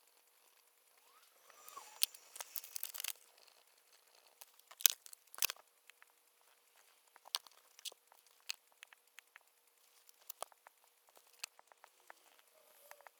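Small desk handling noises: a crinkling rustle with clicks about two to three seconds in, two sharp clicks a little later, then scattered light clicks and taps.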